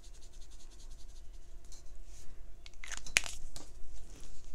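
Brush pen tip scratching lightly on paper, then a brief burst of rustling and a sharp click about three seconds in as the pen is set down and a paintbrush picked up.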